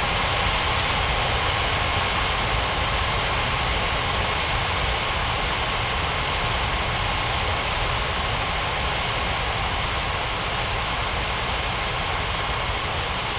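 Airbus A330 jet engines running, a steady rushing noise with a faint high whine, slowly getting a little quieter.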